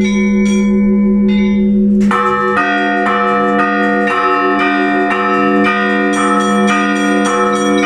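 Russian Orthodox church bells ringing a peal (zvon) that calls the faithful to the Divine Liturgy. Small bells strike in a rhythm over the sustained hum of a larger bell. About two seconds in, more bells join for a fuller peal with strikes about twice a second.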